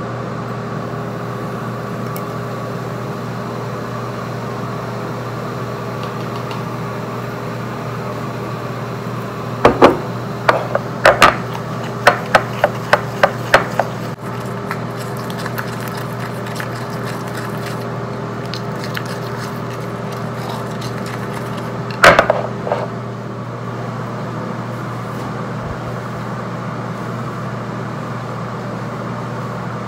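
A mixing stick clacks and scrapes against a small glass dish as clay mask powder is stirred into apple cider vinegar. There is a quick run of about eight sharp strikes about a third of the way in and a short cluster about two-thirds in, over a steady background hum.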